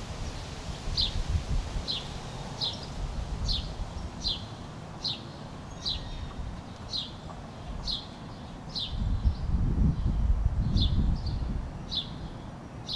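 Random orbital sander running over wooden boards: a low rumbling hiss, heavier for a few seconds near the end, with a short high falling chirp repeating about every half second over it.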